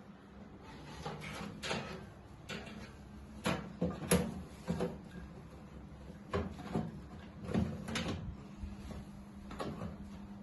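A computer power supply unit being fitted into a PC case: about a dozen irregular knocks, clicks and scrapes as it is handled and set into place, the loudest about four seconds in. A low steady hum runs underneath.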